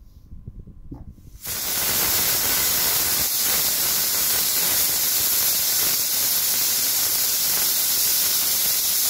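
Pressure cooker's weight valve venting steam: a loud, steady hiss that starts suddenly about a second and a half in and carries on without a break.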